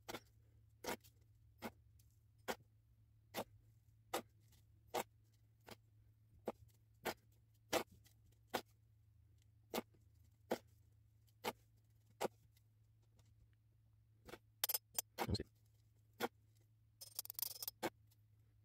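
Slow, even ticking, about one tick every 0.8 seconds, like a clock. Near the end come a few louder scraping knocks of a metal spoon in coarse sand, then a short hiss of sand trickling off the spoon.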